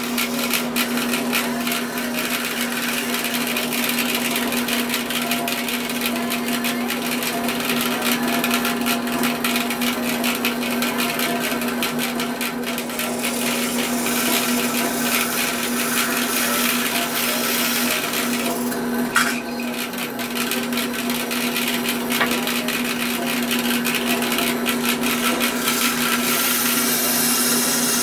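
Bandsaw running under load: a steady motor hum beneath a rough, continuous cutting noise, with one sharp click about 19 seconds in.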